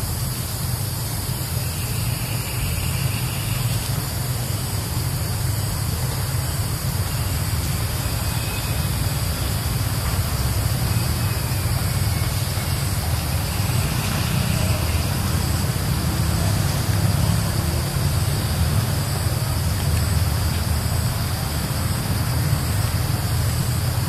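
Steady low rumble with an even hiss over it, outdoor background noise without a clear single source, faint higher chirps about two seconds in and again around fourteen seconds.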